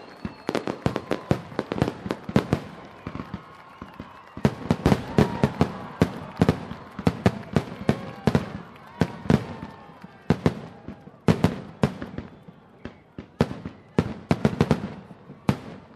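Fireworks finale: a rapid barrage of sharp bangs and crackles that comes in dense volleys, with crowd voices and cheering underneath.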